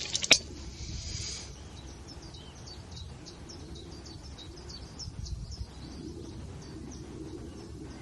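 Small birds chirping repeatedly in short high notes over a low outdoor rumble, with one sharp click just after the start.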